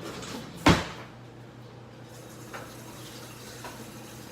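A single sharp knock of kitchen things being handled about a second in, then a couple of faint clicks, over a steady low hum.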